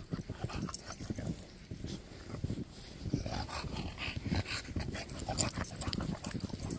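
Bulldogs breathing and snuffling as they plough through deep snow, with a steady run of irregular soft crunches from footsteps in the snow.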